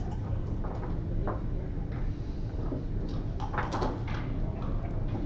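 Steady low room hum with a few light knocks and clicks, one about a second in and a small cluster about three and a half seconds in.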